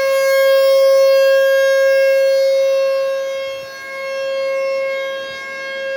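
Outdoor civil defense warning siren wailing on one steady pitch, its loudness dipping twice near the end. It is the second alarm of the night, which the listener takes for a tornado warning.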